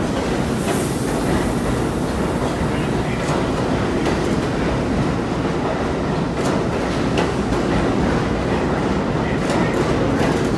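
Budd R32 subway cars running past along the station platform: a steady, loud rumble of steel wheels on rail with short clacks scattered through it.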